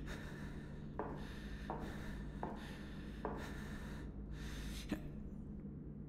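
A man whispering close into another man's ear: breathy, unvoiced speech with sharp little attacks, stopping about five seconds in. A low steady hum sits underneath.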